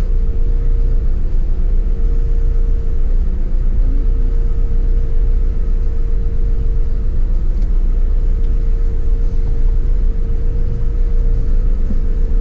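City bus standing still in traffic, heard from the driver's cab: a steady low rumble with a constant hum above it.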